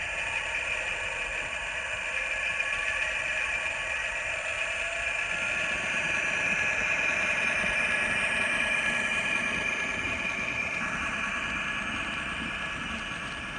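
Diesel prime-mover sound from an N scale BL2 locomotive's DCC sound decoder, set to an EMD 567 sound, idling steadily through the model's tiny speaker, so it is thin with little bass. It swells a little midway and eases off again.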